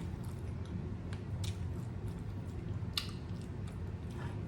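Close-up chewing of a taco: wet mouth smacks and a few sharp clicks, the loudest about three seconds in, over a low steady hum.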